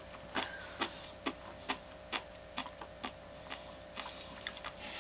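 Close-up mouth sounds of someone chewing food: short wet clicks at about two a second for the first couple of seconds, then more irregular, over a faint steady hum.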